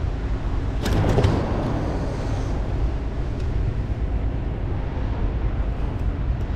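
Steady low outdoor rumble. About a second in there is a short rustle with a few sharp clicks as a grouper is handled in a mesh landing net.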